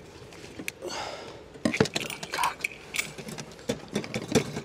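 Hinged wire grill basket rattling and clinking as its latch is worked and it is opened, a string of sharp metallic clicks over the last three seconds.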